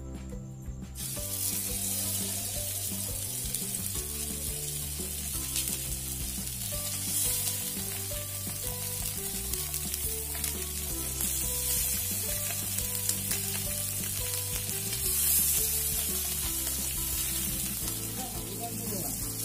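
Marinated Indian mackerel (bangda) pieces sizzling as they fry in hot oil in a tawa over a wood fire. The sizzling starts about a second in, as the fish goes into the oil, and then runs steadily.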